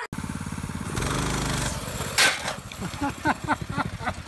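Small single-cylinder engine of a mini bike running and revving with a rapid putter, then a loud crash about two seconds in as the bike goes over onto the asphalt, followed by short scattered knocks and cries.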